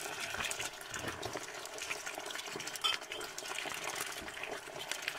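Tomato pasta sauce sizzling steadily in a hot frying pan as more sauce is tipped in from the jar, with a single light click about three seconds in.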